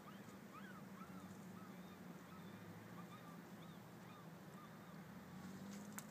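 Faint bird calls: short chirps repeated several times a second, over a steady low hum. A sharp click comes near the end.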